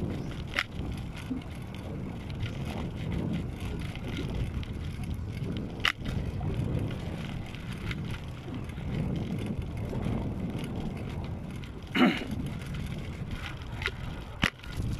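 Bicycle rolling along a cracked concrete road: a steady rumble and rattle of the tyres and frame, broken by a few sharp knocks as it hits cracks, the loudest near the end.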